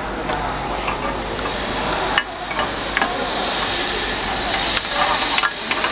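Steady hiss of a working channel letter bending machine, louder for a while after about four seconds, with a few sharp clicks and knocks as bent strips are handled on its steel table; the clearest click comes about two seconds in.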